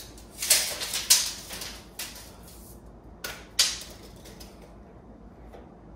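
Steel tape measure in use on a window frame: short rasping rattles of the blade with clicks, two in the first second and two more about three and a half seconds in.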